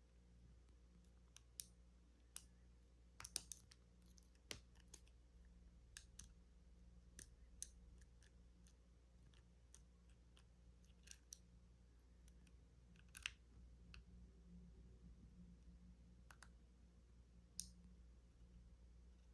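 Faint, irregular metallic clicks and ticks of a lock pick working the wafers of a wafer lockout-tagout padlock held under tension, with a short cluster of clicks about three seconds in and a few sharper single clicks later.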